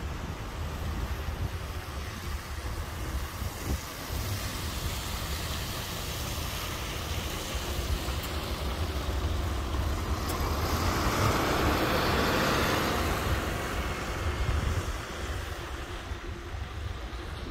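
Articulated city bus driving past on a wet road, its motor running and its tyres hissing on the wet surface. It swells to its loudest about two-thirds of the way through and then fades, over a steady low rumble.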